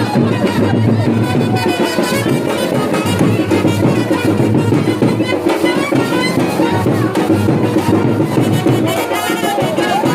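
Music with brass instruments and drums playing steadily.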